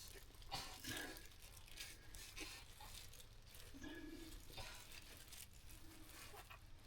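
Faint, scattered rustling and crinkling of hands working to pull a lamb from a ewe during a hard birth, with a short low sound about four seconds in.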